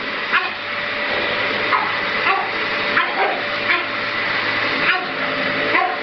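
Vacuum cleaner running steadily while a pug barks at it in short, sharp barks, several times over.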